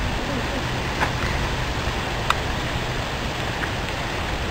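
Steady rain falling, an even hiss, with a few sharp ticks a second or so apart.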